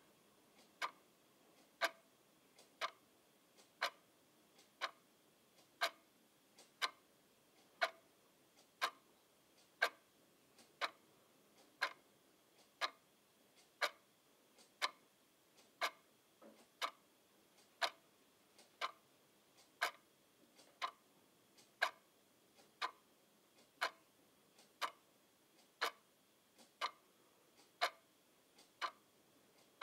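Clock ticking steadily, about one sharp tick a second.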